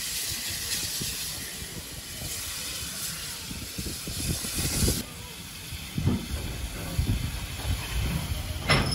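BR Standard Class 9F steam locomotive 92134 letting off steam, a steady hiss that cuts off suddenly about five seconds in. A few low thumps follow near the end.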